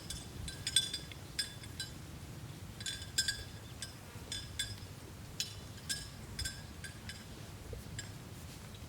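Cattle bells clinking irregularly, a dozen or so short metallic rings, some in quick pairs.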